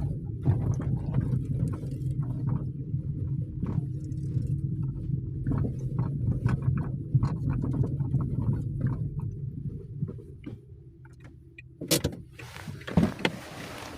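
Inside a 2023 Lada Vesta NG driving over rough unpaved ground: steady rumble from the road with repeated short knocks, the knock from the electric power steering that is the car's defect. The ride goes quieter about ten seconds in, then a sharp loud knock comes near the end.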